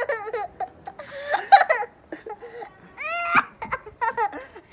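A young girl and a man laughing in short, high-pitched bursts, with a rising squeal about three seconds in.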